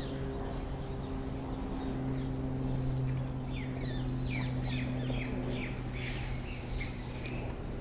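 Small birds chirping, a run of quick downward-sliding chirps that thickens into dense chirping near the end, over a steady low hum.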